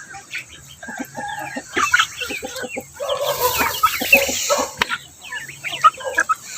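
A flock of chickens clucking and calling over one another, busiest a few seconds in.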